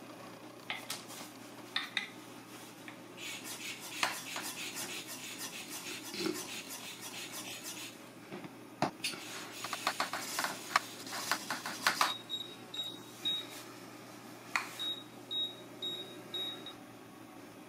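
Clicking and clattering of hard metal and plastic parts as an underwater camera housing is handled, then a series of short, high electronic beeps at one pitch, in two groups of about four, from about twelve seconds in.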